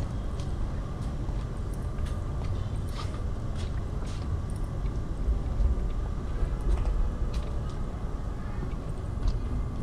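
Outdoor city street ambience: a steady low rumble, likely distant traffic, with scattered short clicks and taps throughout.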